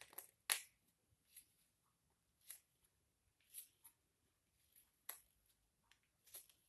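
Carving knife taking short, faint slicing cuts in cherry wood at a spoon's neck, a scrape roughly once a second. The cuts run against awkward grain that is leaving chatter marks.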